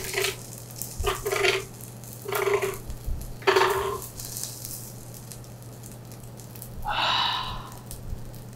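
Metal spoon scraping fried rice across a hot griddle plate in four short rasping strokes, about one a second. A brief higher-pitched sound follows about seven seconds in.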